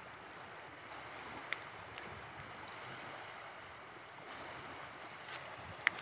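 Small lake waves lapping steadily on a gravel shore, with a couple of faint sharp clicks.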